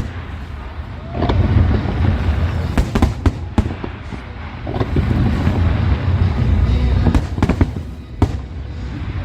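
Large aerial fireworks display: a quick series of sharp shell bursts and crackles over a continuous low rumble.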